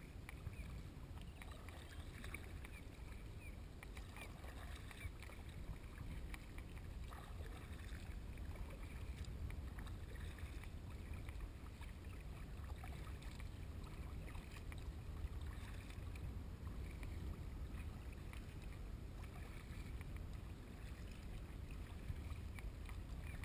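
Water lapping and splashing against a kayak hull as it is paddled, with scattered small drips and splashes from the paddle over a steady low rumble.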